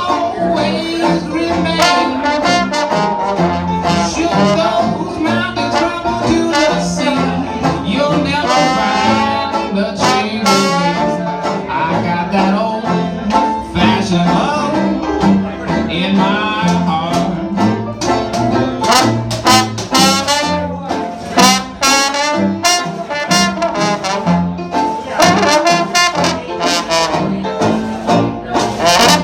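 Live traditional jazz band playing an up-tempo tune, with brass prominent; a trombone takes the lead near the end.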